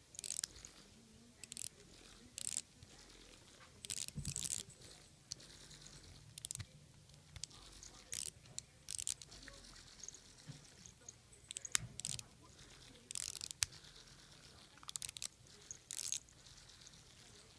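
A pet mouthing and pawing at a plush Angry Birds toy: irregular short bursts of crunchy, scratchy noise, one or two a second, with a faint low hum underneath at times.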